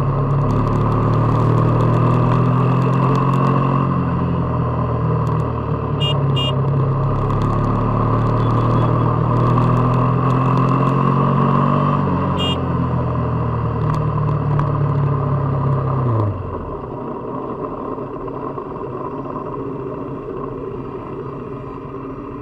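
KTM RC 390's single-cylinder engine and exhaust running steadily while the bike rides along, with the engine note wavering slightly. About sixteen seconds in, the engine note falls and drops away sharply, leaving quieter road and wind noise.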